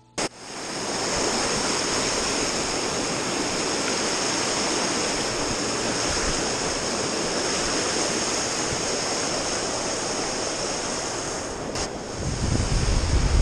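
Spillway water rushing over rocks close to the camera, a loud steady hiss. Near the end, wind buffeting the microphone adds a low rumble.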